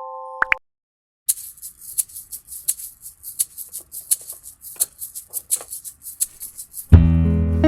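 Yarn packaging crinkling and rustling as it is handled and opened: a run of irregular short crackles lasting about five seconds. A held keyboard chord cuts off just before, and music with guitar comes in loudly near the end.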